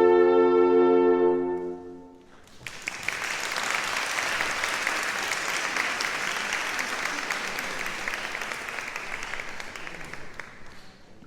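A French horn ensemble holds a final sustained chord, released about two seconds in. Audience applause follows and gradually dies away near the end.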